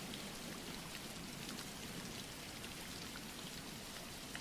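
Steady soft rainfall: a continuous hiss with fine, scattered pattering of drops.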